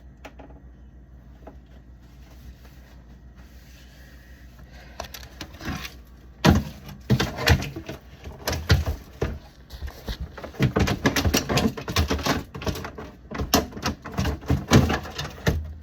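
Plastic fridge drawer and its contents being handled: a quiet stretch with faint rubbing, then from about six seconds in a busy run of irregular knocks, clatters and sliding.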